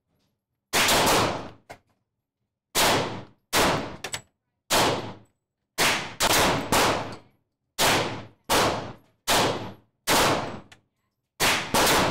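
Gunshots at an indoor shooting range: about a dozen sharp shots in quick, uneven succession, each echoing briefly.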